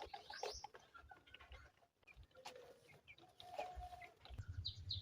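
Faint chickens clucking with small birds chirping; near the end a quick run of high chirps, about three a second.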